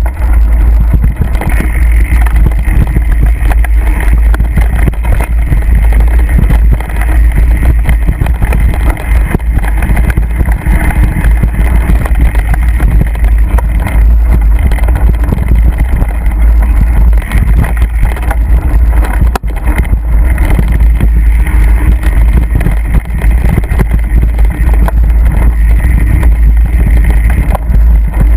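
Mountain bike riding fast over a rough forest trail, heard from a camera carried on the ride: a loud, continuous rumble of wind on the microphone mixed with constant rattling and knocking from the bumpy ground.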